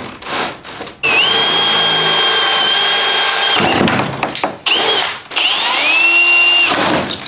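Cordless drill working into a van's metal door panel, running in several bursts with a steady high whine; the longest lasts about two and a half seconds, and the last one climbs in pitch as the motor spins up.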